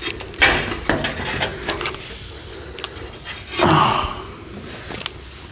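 Handling noise under the truck's front bumper: scattered light clicks and knocks as a hand and the camera move against the plastic valance, with one louder breathy rush about three and a half seconds in.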